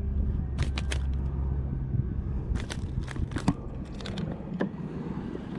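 Irregular sharp clicks and crackles of hands handling gear or a fish close to the microphone, over a steady low rumble.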